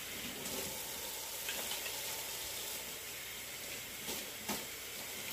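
Kitchen sink tap running steadily while hands are washed under it: an even hiss of water, with a small knock about four and a half seconds in.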